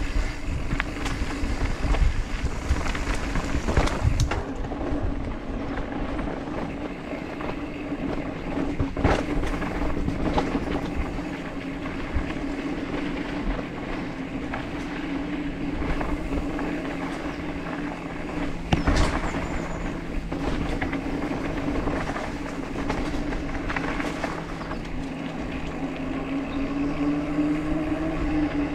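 Mountain bike rolling downhill on a dirt trail: tyres running over dirt and rock under a steady buzz from the coasting rear freehub, which rises in pitch near the end as the bike speeds up. The bike rattles throughout, with sharp knocks from bumps about 2, 4, 9, 10 and 19 seconds in.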